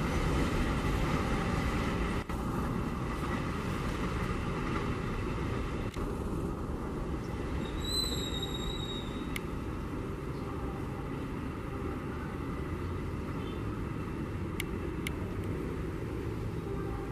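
Container freight train's loaded flat wagons rolling past on the rails: a steady noise of steel wheels on track, with a brief high whistle-like squeal about eight seconds in and two sharp clicks near the end.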